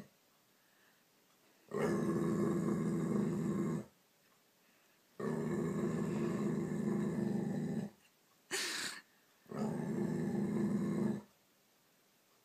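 Yellow Labrador retriever growling at its own reflection in a mirror: three long growls of two to three seconds each, with a short sharp sound between the second and the third.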